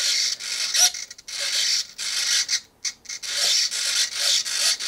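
Small RC model servos whirring in repeated bursts of about a second, with short pauses between, as they drive the elevator and ailerons back and forth.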